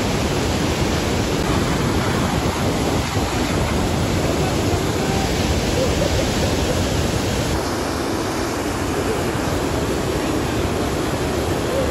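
Niagara River water rushing through rapids toward the falls: a steady, unbroken rush of noise.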